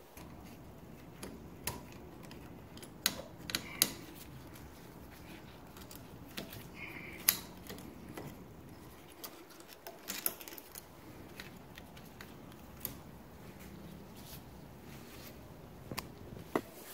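Scattered sharp clicks and light taps of pliers working at the plastic throttle lever housing on a Yamaha WaveRunner III 650's handlebar, during a throttle cable replacement.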